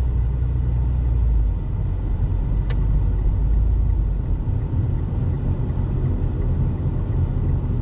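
Steady low rumble of a car's engine and tyres heard from inside the cabin while driving, with one short sharp click a little under three seconds in.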